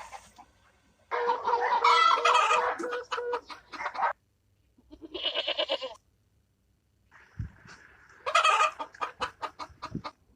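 A series of animal calls: a long pitched call ending in quick pulses, a shorter call about five seconds in, and a run of rapid pulsed calls near the end.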